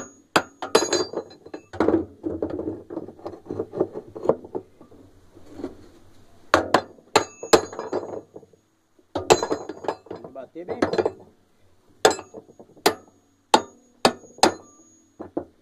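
Hammer blows on the metal basket nut at the hub of a Continental top-loading washing machine. The strikes are sharp, ringing and metallic, coming in irregular groups of two to four. The nut is being knocked tight so the basket will not work loose.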